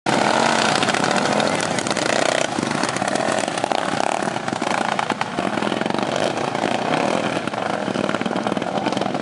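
Several racing lawn mowers' small engines running hard together as the pack drives past on the dirt track, easing off slightly in loudness as they pull away.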